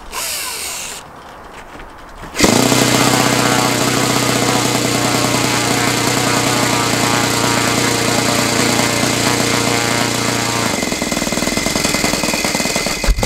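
A hand-held electric starter cranks a Saito FA-62B four-stroke glow engine for about ten seconds without getting it to run on its own. The loud, steady mechanical whirr starts suddenly about two seconds in, its tone changes a few seconds before the end, and it cuts off abruptly.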